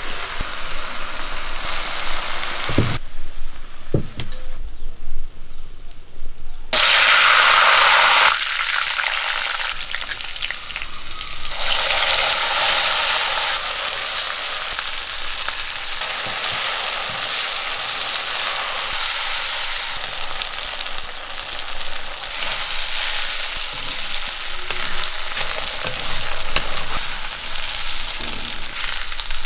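Cooked masala beef frying in hot oil in a cast-iron kadai. A loud rush of sizzling comes about seven seconds in as the beef goes into the oil, then a steady sizzle with a spatula stirring and scraping.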